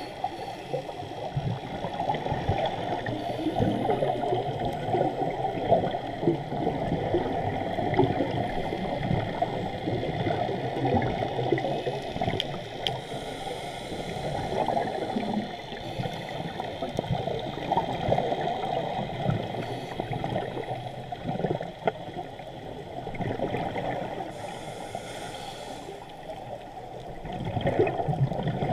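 Muffled underwater rushing and gurgling bubbles picked up through a GoPro's waterproof housing on a scuba dive. The sound swells and eases every few seconds and grows louder near the end.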